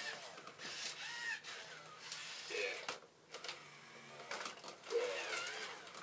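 Robosapien toy robot's small geared motors whirring as it swings its arms, with the whine gliding up and down and short plastic clicks, in several separate movements.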